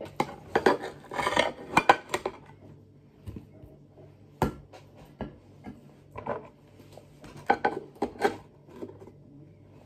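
Serving spoons clinking and scraping against a dish and plates while potato dauphinoise is dished up. There is a quick run of clinks at the start, a single sharp knock in the middle, and another few clinks near the end.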